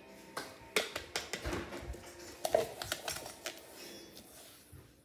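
Scattered light clicks, taps and short scrapes of hands and a plastic container against a stainless steel mixing bowl, as an ingredient is poured and handled in the bowl.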